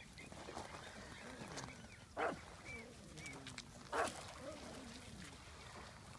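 Pug barking twice, two short sharp barks about two seconds apart, with quieter whiny vocal sounds between them.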